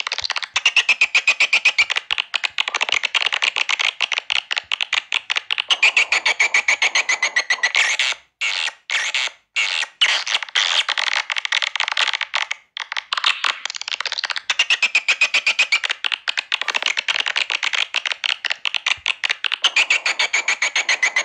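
Recorded swiftlet call lure: fast, rapidly pulsing chirps and chattering of swiftlets, with twittering trills that rise and fall, broken by a few brief pauses about a third of the way in.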